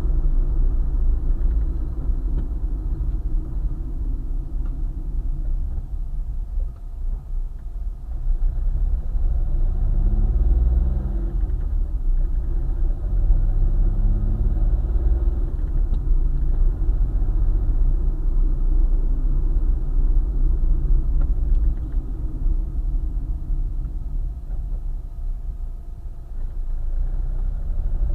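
Car driving along a highway: a steady low road and engine rumble, with the engine note rising in pitch a couple of times as the car accelerates.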